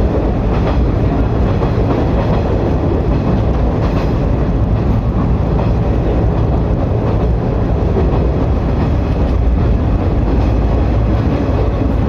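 105 series electric train running, a steady low rumble of wheels on rails.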